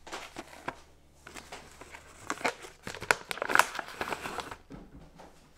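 Plastic pouch of dog treats picked up and handled, its packaging crinkling in irregular bursts of crackles that die away near the end.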